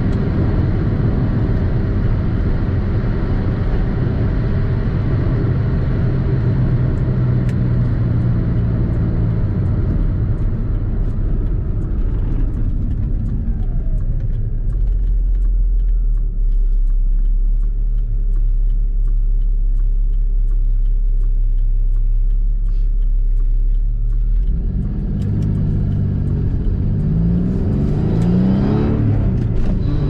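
Supercharged 3800 V6 (L67) in a Pontiac Fiero driving: running steadily at first, the revs easing off into a low rumble about halfway through, then accelerating hard near the end with the pitch climbing in several quick runs.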